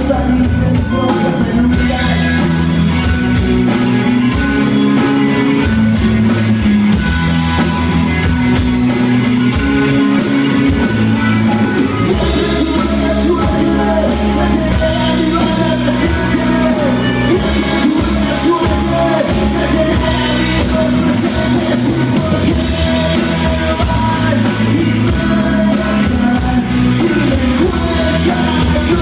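Live rock band playing: electric guitars, bass guitar and drum kit with a steady beat, and a male lead singer singing over them.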